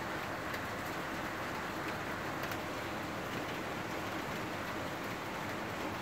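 Steady outdoor background noise, an even hiss with a few faint ticks and no clear bird call.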